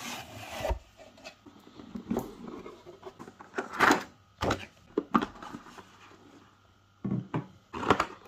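A clipper's product box being opened and its contents handled: irregular knocks and thunks with rustling between them.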